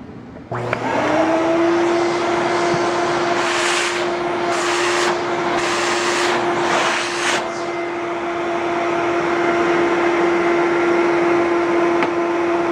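An 11-amp Fantom vacuum cleaner is switched on about half a second in. Its motor spins up within a second to a steady high whine over rushing air. Between about three and seven seconds in, the airflow surges four times, roughly once a second, then the motor runs on evenly.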